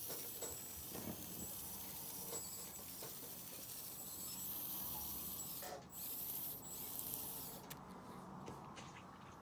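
Tiny electric motors of a micro-scale RC Liebherr PR 734 bulldozer model running as its dozer blade is raised and tilted: a steady high whir, with two short breaks a little before the end and stopping near the end.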